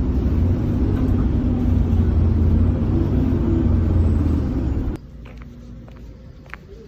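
A loud, steady low rumble that cuts off suddenly about five seconds in, leaving a much quieter background with a few faint clicks.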